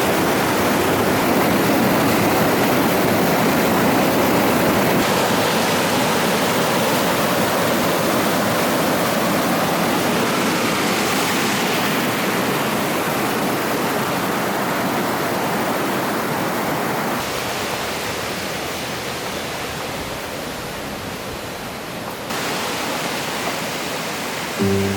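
Water of a mountain gorge stream and waterfall rushing steadily. The sound changes abruptly three times, as the recording cuts between spots along the stream, and it is a little softer in the last few seconds.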